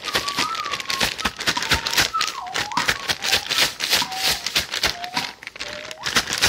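Clear plastic bag crinkling and rustling as mackerel pieces are shaken and worked around in breading mix inside it, a fast continuous crackle.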